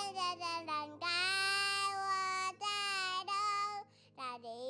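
Background music: a high voice singing a melody of long held notes over a steady backing, with a brief break about four seconds in.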